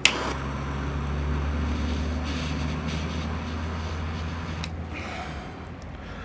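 A cable tie's tail snipped off with a sharp snap, followed by a steady low hum lasting about five seconds that fades out, with a small click near its end.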